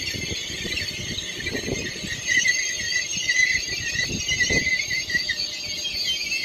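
Continuous high-pitched metallic squeal from an approaching freight train hauled by a BR 186 electric locomotive, over a low rumble of the train on the rails.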